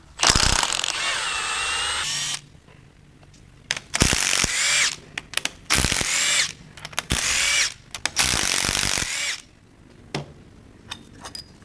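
Cordless impact wrench backing out cylinder head bolts in four runs of one to two seconds each, its pitch rising and falling within each run. A few light clicks follow near the end.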